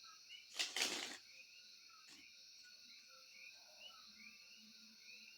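Tarot cards handled in a brief rustling burst about half a second in. Under it and after it runs a faint steady background of a high even hiss and short chirping animal calls repeating about twice a second.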